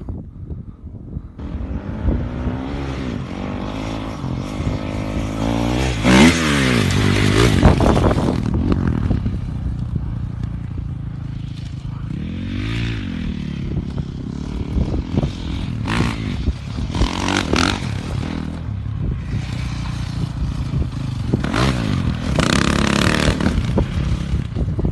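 Honda CRF450 dirt bike's single-cylinder four-stroke engine revving up and down as it is ridden, with a rushing noise throughout. The engine pitch climbs and falls sharply several times, most clearly about six seconds in and again near the middle.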